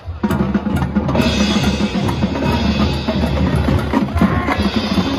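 High school marching band playing, with the drum line's bass drums and snares to the fore. The band comes in loud right at the start and fills out further about a second in.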